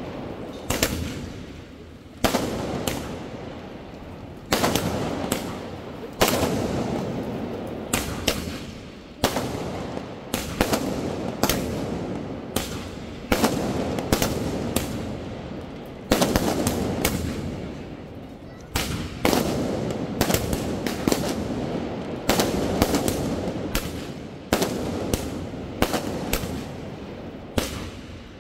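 Aerial fireworks bursting overhead in a steady run: a sharp bang every one to two seconds, each one dying away before the next.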